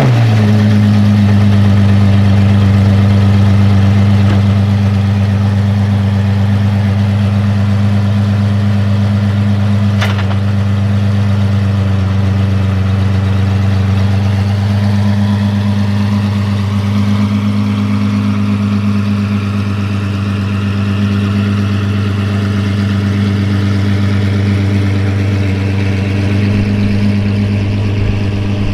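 Apollo Intensa Emozione hypercar's naturally aspirated V12 idling steadily just after start-up, a little louder for the first few seconds before settling to an even idle. A brief click about ten seconds in.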